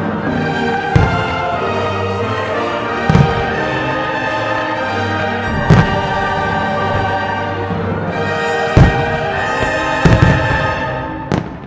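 Orchestral music with the deep booms of aerial firework shells bursting over it, about five or six times, the loudest near the end; the sound dips briefly just before the end.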